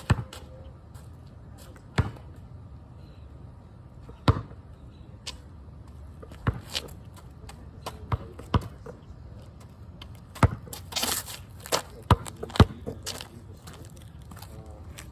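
A basketball bouncing on a rough paved driveway: single sharp thuds at irregular gaps, about two seconds apart at first and closer together in the second half, with a brief scuffing noise about eleven seconds in.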